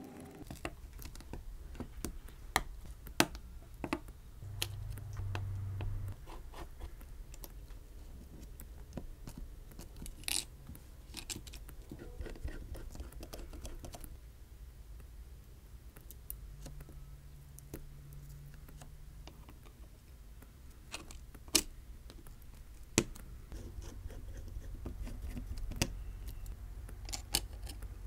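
Small clicks, taps and scratches of a precision screwdriver, plastic spudger and fingers on an iPhone 12's metal brackets and logic board during reassembly, scattered irregularly. A brief low hum comes twice, about five seconds in and again around seventeen seconds.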